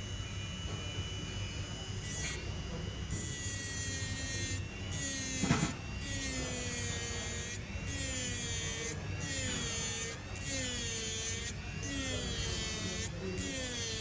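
Small electric grinding pen grinding the metal plate of an iPhone 7 home button in short repeated passes, starting about two seconds in. Its whine sags in pitch each time the bit bites and climbs again as it eases off, with a sharp click about five and a half seconds in.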